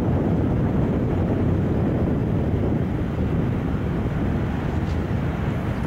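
Steady aircraft engine noise, mixed with wind buffeting the microphone.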